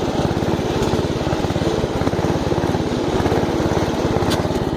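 Off-road-modified riding lawn mower engine running steadily, its exhaust a rapid, even chain of firing pulses. There is a short click about four seconds in.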